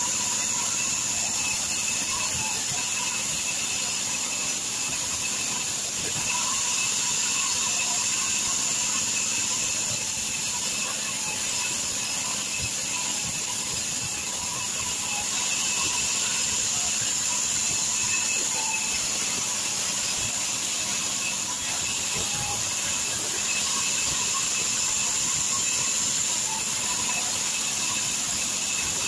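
Band sawmill blade cutting lengthwise through a log to make boards: a steady high-pitched whine over a constant hiss of sawing.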